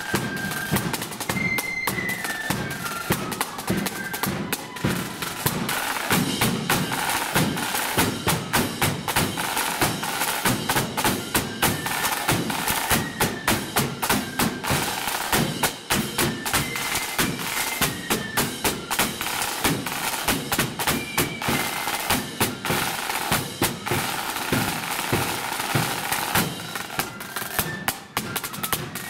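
A marching flute and drum band playing on parade: snare drums beaten hard with rolls, and bass drum beats keeping the march time. A flute tune comes and goes above the drums.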